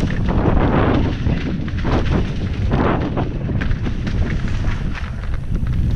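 Downhill mountain bike running fast over a rough dirt trail, heard from a helmet-mounted camera: heavy wind buffeting on the microphone over the rattle and clatter of the bike and tyres. There are two louder rushing swells, about half a second and about three seconds in.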